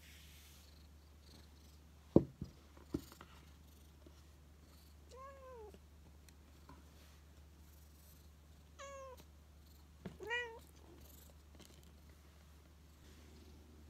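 A white cat meowing three times, each meow rising then falling in pitch, the last two close together. Before the meows come two sharp thumps, the loudest sounds.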